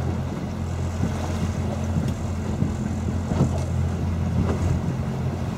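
A boat's engine running steadily with a low, even hum, with wind on the microphone and water noise.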